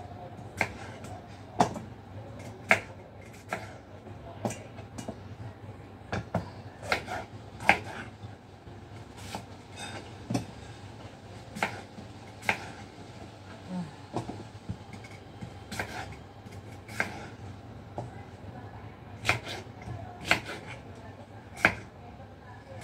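Kitchen knife cutting food on a cutting board: sharp knocks at an uneven pace, about one a second, over a low steady hum.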